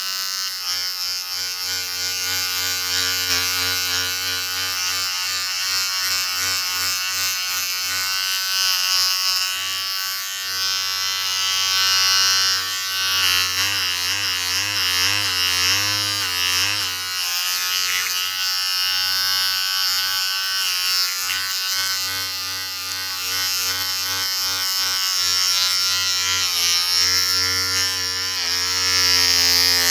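Electric shaver buzzing steadily, its pitch wavering briefly about halfway through and again near the end.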